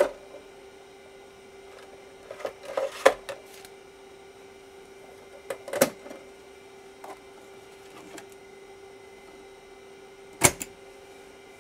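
Plastic clicks and knocks of a 3.5-inch floppy disk being handled and pushed into an Apple 3.5 Drive (A9M0106), with a single loud clunk about ten seconds in, over a steady hum.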